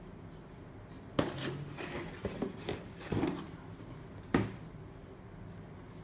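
Handling noise from an unboxed Xiaomi robot vacuum and its packaging: a sharp hard-plastic knock about a second in, then a run of taps and rubbing, and another sharp knock a little after four seconds in.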